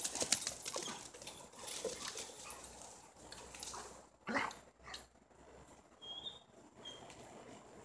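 A German shepherd playing fetch on dry leaves: scuffling and rustling as the ball is thrown and the dog dashes off after it, then one short, louder sound about four seconds in.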